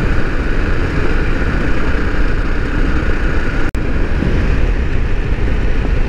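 Honda Rally dual-sport motorcycle riding at speed on a gravel road: steady engine, wind and tyre noise on the rider's helmet microphone. The sound drops out for an instant a little past halfway.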